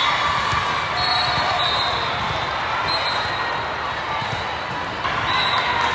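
Steady din of a large hall full of volleyball games: balls being struck and bouncing, with voices of players and spectators mixed in.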